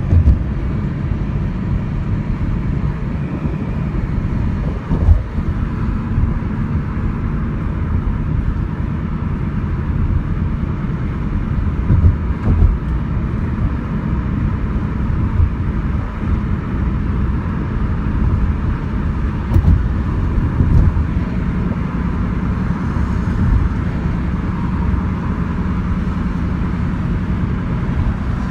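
Steady road noise of a moving car heard from inside the cabin: a low rumble of tyres, engine and wind. A few brief low thumps come through, at about five seconds, twice around twelve seconds and near twenty-one seconds.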